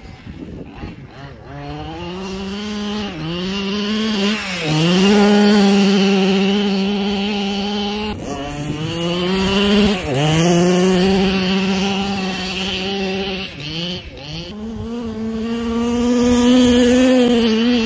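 Small two-stroke engine of a radio-controlled car running at high revs, held on the throttle for long stretches. The pitch drops and climbs back up several times as the throttle is let off and reapplied.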